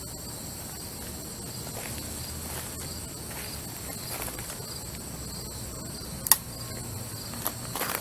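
Crickets chirping steadily, with one sharp click about six seconds in and a few light footsteps near the end.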